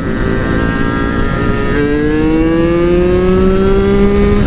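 Yamaha F1ZR underbone's two-stroke single-cylinder engine pulling under acceleration, its pitch climbing steadily for a few seconds, then falling abruptly at the end as at a gear change.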